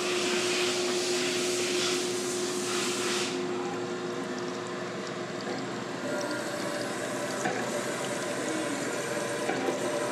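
CNC gang-tool lathe, a retrofitted 1959 Hardinge, running and cutting brass bar stock. A hiss of coolant spray fills the first three seconds or so over a steady hum that fades out about four seconds in. After that the machine runs on steadily with faint ticks.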